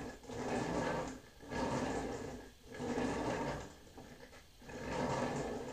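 Legacy Titanus toy being rolled back and forth on a table, its wheel-driven mechanism rattling and clicking as the feet move. The sound comes in strokes of about a second each, with short pauses between them.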